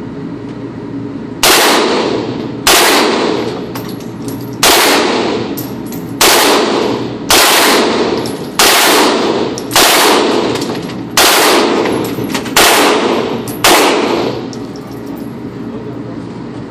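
Short-barrelled M4 rifle fired as ten single shots, roughly one every second to second and a half. Each report rings on in a long echo off the walls of the indoor range.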